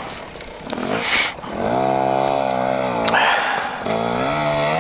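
2021 GasGas MC450F's single-cylinder four-stroke engine running, its revs held steady, then dipping and rising again near the end. A short rush of noise comes about a second in, before the engine sound builds.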